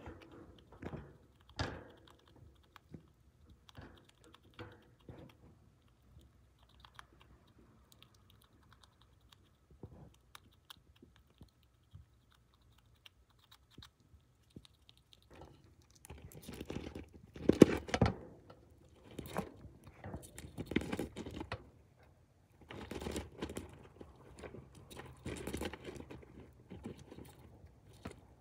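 Pet chipmunk gnawing and crunching its food in small, rapid clicks: sparse at first, then busier and louder in the second half.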